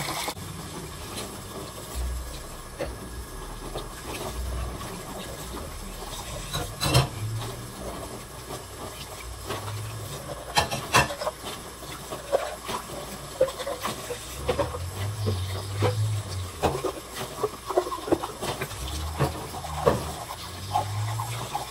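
Dishes being washed by hand at a kitchen sink: tap water running with many short clinks and knocks of dishes and utensils.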